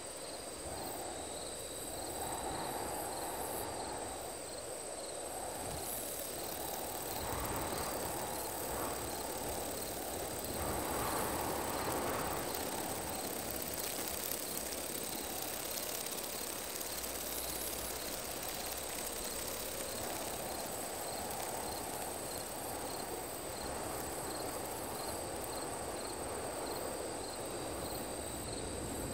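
Sound-designed night ambience: a steady high trill of crickets with an even, pulsing chirp, layered over a low rushing drone that swells and fades, loudest near the middle.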